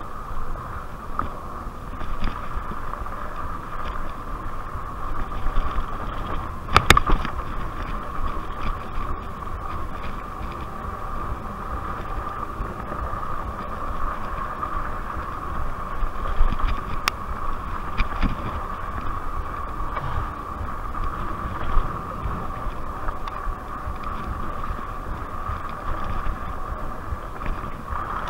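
RadRover electric fat-tire bike ridden at a steady speed on a dirt trail: its 750-watt geared hub motor whines at one constant pitch over the rumble of the tyres on dirt and wind on the microphone. A few sharp knocks from bumps, the loudest about seven seconds in.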